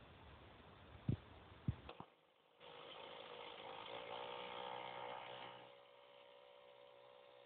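Two sharp knocks over a rustling hiss in the first two seconds. After a brief drop-out, a faint engine comes in at a steady pitch. It is louder for about three seconds, then eases off and keeps running quietly.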